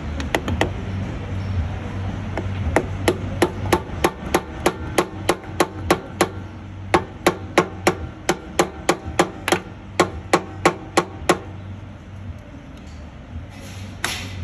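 Hammer blows on the truck's slack adjuster, sharp and ringing, about three a second, breaking the seal of the grease boot to drive it out. A few quick blows come first, then a steady run that stops about three seconds before the end.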